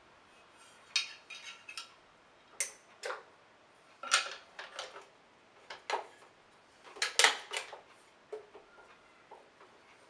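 Metal parts of a vintage Hoover Senior 638 upright vacuum cleaner clanking and clattering as a metal part is handled and fitted onto the machine's underside: a dozen or so irregular knocks and clicks, some in quick clusters, the loudest about seven seconds in.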